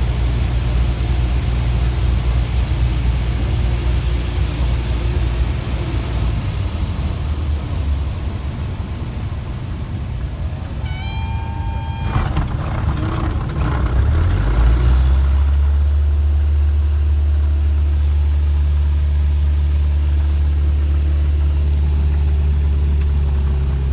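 Single-engine light aircraft's piston engine and propeller heard from inside the cabin, throttled back during the landing. A warning horn sounds for about a second near the middle, and a few seconds later the engine power rises and holds steady for taxiing.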